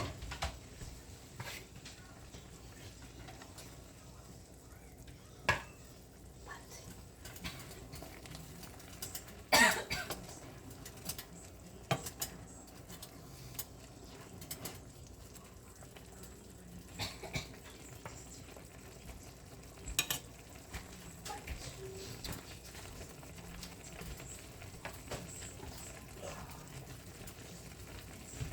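Cooking utensils knocking and clinking against a pan, in scattered separate strikes with quiet gaps between them. The loudest knocks come at the very start and about ten seconds in.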